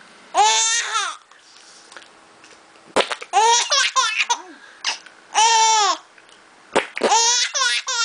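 Five-month-old baby laughing in four high-pitched, squealing bursts, each rising and falling in pitch, with a few short sharp clicks between them.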